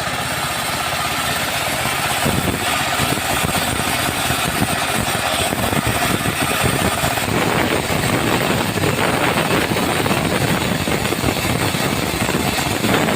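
Engine-driven saw running steadily while cutting teak wood. The engine's rapid pulsing gets heavier about seven seconds in.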